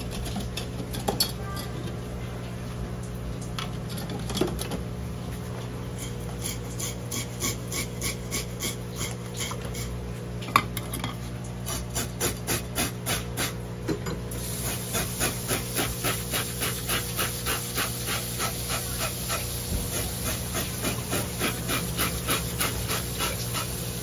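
A knife blade scraped over the skin of a large olive flounder in quick, even strokes, about three a second, growing louder partway through. A steady low hum lies underneath.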